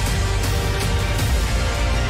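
Background music with a steady beat and sustained tones over a bass line.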